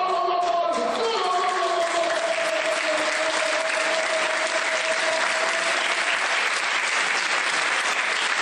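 Audience applauding, with a single long held voice tone underneath that tails off about six seconds in.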